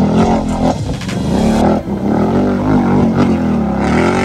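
ATV engine revving up and down again and again while its tyres spin in deep mud, the quad stuck fast in a mud pit.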